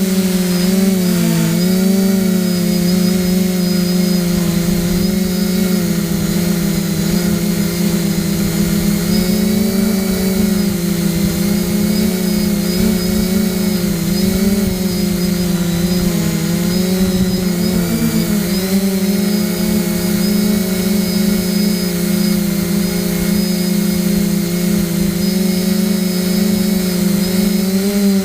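A motor running steadily with a constant hum whose pitch wavers slightly.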